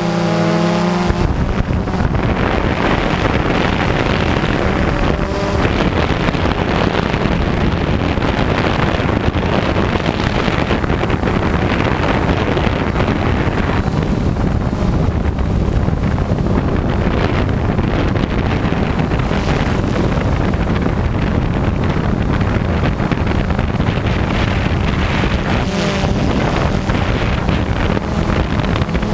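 Steady rush of wind on the microphone of a camera carried on a flying drone, mixed with the buzz of its propellers. A faint motor hum shows through just after the start and again near the end.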